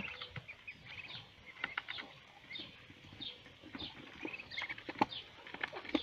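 Month-old ducklings peeping softly and repeatedly while they feed, with scattered faint clicks of bills pecking at the feed trough.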